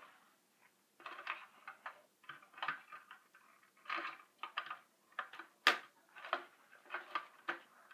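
Plastic Lego Technic parts clicking and rattling as a piece that came off the Unimog model is fitted back on. It is a series of small, irregular clicks, with one sharper snap a little before six seconds in.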